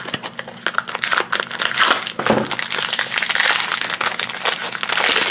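A cardboard blind box is pulled open, then the foil blind bag inside crinkles and crackles as it is handled and opened by hand.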